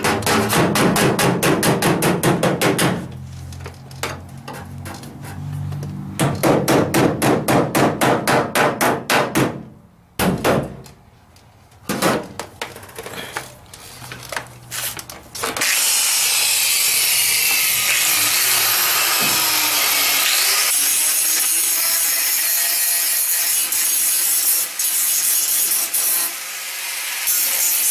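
Rapid hammer blows on the sheet-steel rear quarter panel of a 1972 Ford Custom, in two quick runs and then a few single blows, as the creases are knocked straight. About halfway through, a power tool starts grinding the metal with a steady high hiss that runs on.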